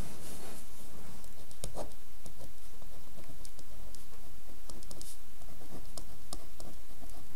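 Hand lettering on drawing paper: faint, irregular scratches and small taps of the pen tip as words are written, over a steady low hum.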